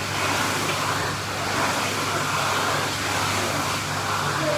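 Steady rushing of churning pool water, with a low steady hum underneath.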